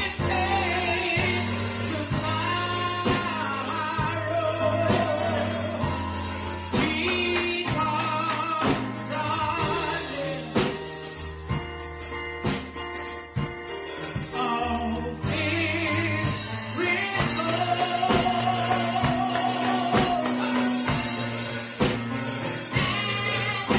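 Gospel song playing: singing over a band with a steady bass line and tambourine.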